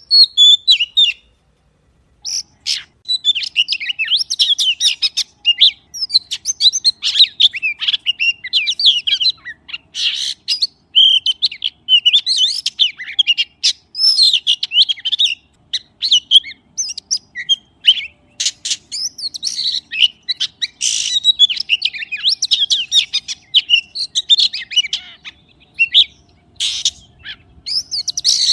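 Magpie singing: a long, varied run of quick chirps, whistles and trills, with a short pause about a second in and brief breaks between phrases.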